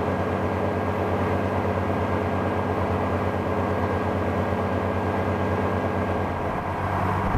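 A boat's engine running steadily, an even low drone that holds the same pitch throughout.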